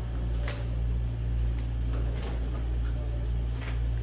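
Hands handling a length of flat slingshot rubber band, making short rustles three times over a steady low hum.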